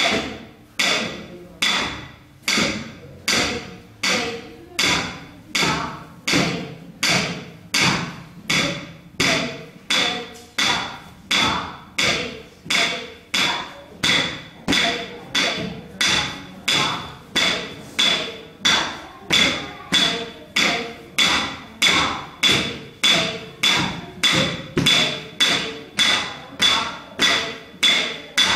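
A steady beat of sharp knocks, about three every two seconds, each dying away quickly, keeping time for the dancers.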